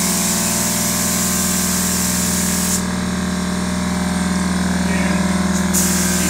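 Gravity-feed spray gun hissing as it sprays paint. The spray stops about three seconds in and starts again near the end, over a steady motor hum from the air supply.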